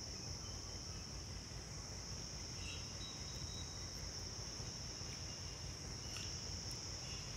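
Steady high-pitched background noise over a low hum, at a low level with no other events.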